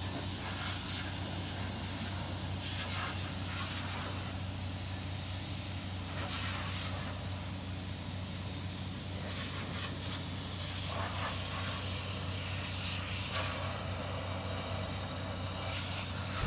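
An engine running steadily: a low, even hum with a hiss over it.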